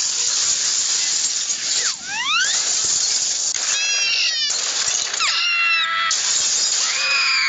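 Cartoon sound effects: a loud hiss that cuts in and out, a sharp rising whistle-like glide about two seconds in, then several short, high, squeaky cries from the cartoon characters.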